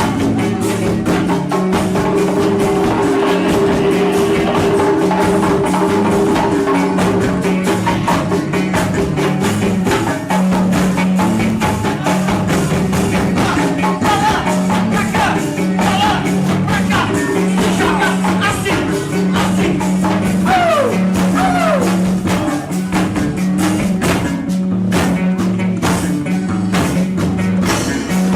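Loud dance music with a pulsing bass note and dense, fast percussion, with a few short sliding tones a little past the middle.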